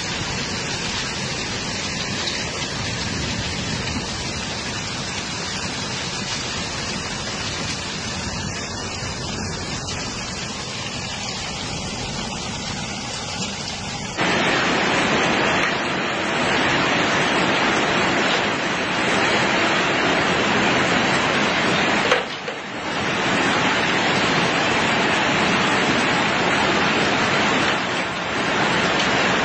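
Heavy hailstorm: hail and rain pelting down in a dense, steady rush of noise, which steps up louder about halfway through.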